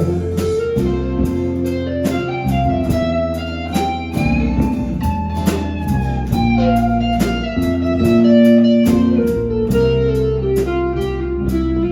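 Country band playing an instrumental passage between sung lines: guitar leading with a sliding melody over bass and a steady drum beat.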